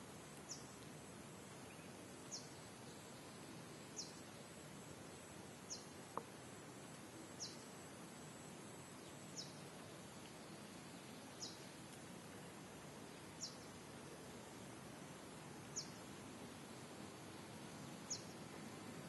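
Faint steady hiss with a short, high, falling chirp repeating about every two seconds.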